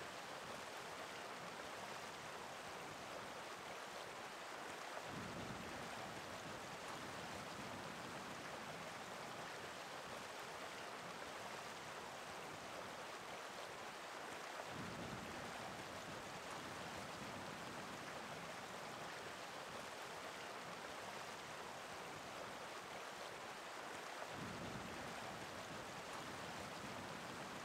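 Mountain stream running: a faint, steady rush of water with slight low swells about every ten seconds.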